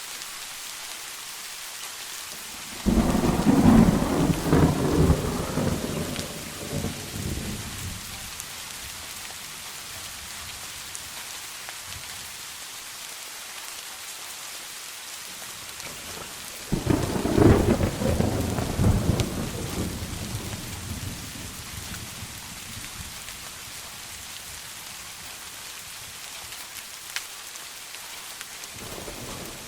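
Steady rain falling, with two rolls of thunder. The first begins about three seconds in and the second about halfway through, each starting sharply and rumbling away over several seconds.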